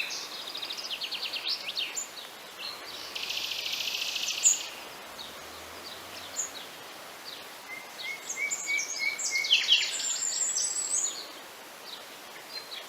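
Wild birds singing and chirping over a faint background hiss, with quick chirps, a buzzy trill about three seconds in, and a busy run of whistled notes past the middle.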